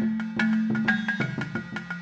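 Background music: an upbeat tune of quick, evenly spaced mallet-percussion notes over a low held bass note.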